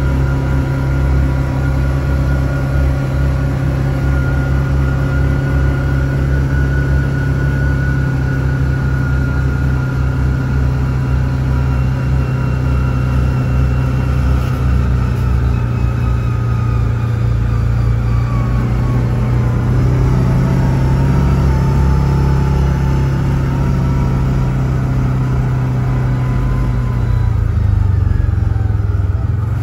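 Yamaha Wolverine R-Spec side-by-side's engine running steadily under way, its pitch easing down a little past the middle.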